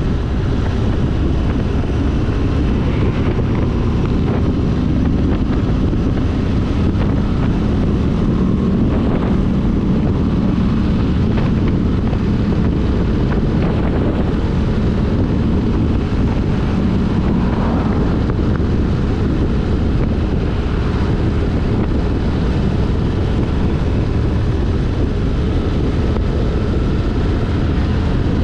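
Motorcycle engine running steadily at cruising speed, mixed with heavy wind noise on the microphone.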